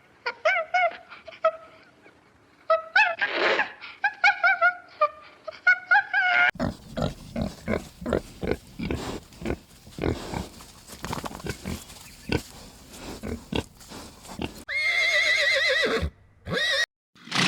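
A series of animal calls: short squeaky calls at first, then a long run of quick, rough grunt-like sounds, and near the end a wavering, drawn-out call.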